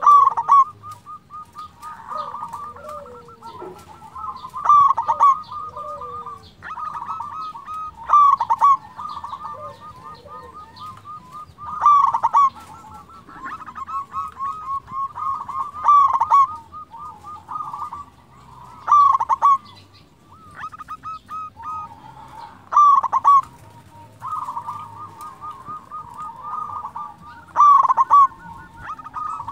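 Zebra dove (local perkutut) singing: a repeated cooing phrase of fast stuttering notes, with a louder accented coo about every three to four seconds.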